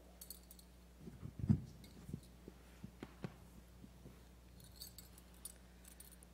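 Faint knocks and bumps of someone stepping up to a pulpit and handling its microphone, with the loudest thump about one and a half seconds in and a few light clicks later, over a steady electrical hum.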